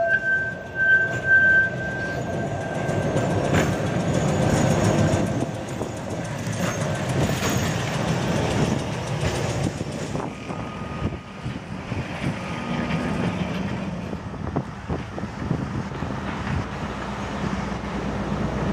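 Heritage electric tram running along street rails with a steady rolling rumble. A high, steady wheel squeal sounds for the first two seconds or so, and a few clicks follow as the wheels pass over the track.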